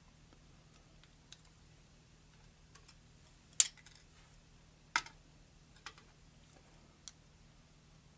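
Scattered small metal clicks and taps from a pin-tumbler lock cylinder being taken apart, as the pin stack of the first chamber is worked out; the sharpest click comes about three and a half seconds in, another about five seconds in.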